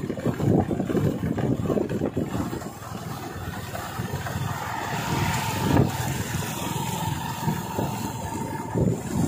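Small motorbike engine running as it rides along a road, a little quieter for a second or so about three seconds in. A faint steady whine sits above it in the second half.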